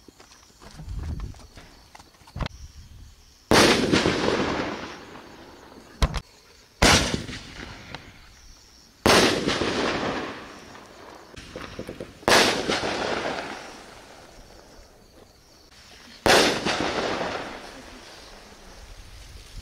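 1.75-inch aerial ball shells fired one after another: about five sharp bursts a few seconds apart, each trailing off over a second or two. Before each of the first two bursts comes a fainter, shorter launch crack.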